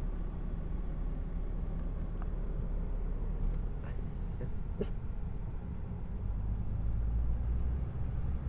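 Low, steady rumble of a vehicle's engine heard inside its cabin, with a few faint clicks; the rumble grows louder about two-thirds of the way through.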